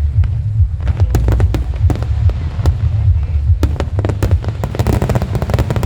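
Fireworks display going off: rapid sharp bangs and crackles, becoming a denser crackle in the last second or two, over a constant heavy low rumble.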